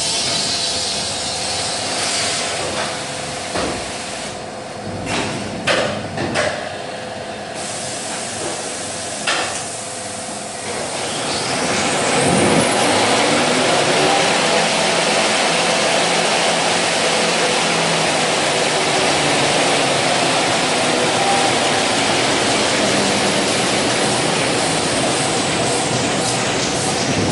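Toilet paper rewinding machine running with a steady mechanical hum and a few knocks. About eleven seconds in, a rising whine leads into a louder, steady rush of machinery.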